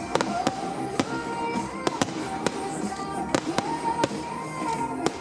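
Fireworks going off in a quick string of sharp bangs, two to three a second, over loud music played for a display fired in time to the music.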